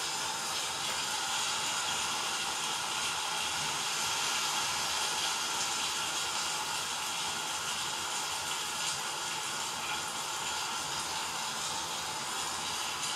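Hurricane storm sound effect: a steady rushing hiss that does not change.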